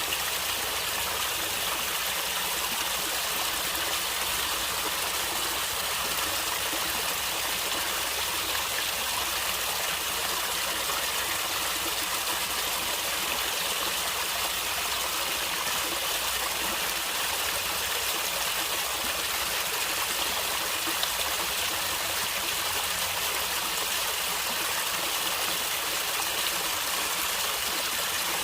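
Natural flowing water gurgling, a steady, unbroken rush with splashy high-pitched hiss and little low rumble.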